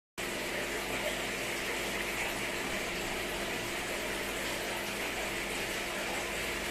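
Aquarium filter running, a steady rush of moving water with a faint hum under it; it cuts in suddenly just after the start and stays even throughout.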